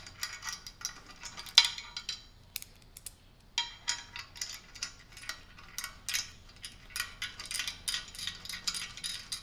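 Irregular small metal clinks and taps as a steel bolt and washer are fitted and threaded by hand into a handle bracket on a steel trap bar. There is a short pause about two seconds in, then closer-spaced clicking.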